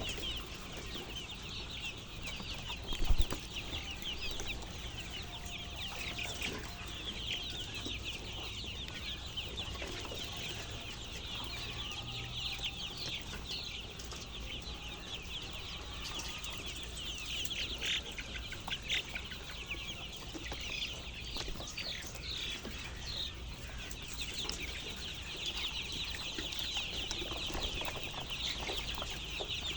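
A flock of chickens in a poultry house, many calling at once in a continuous high-pitched chatter. There is a single sharp knock about three seconds in.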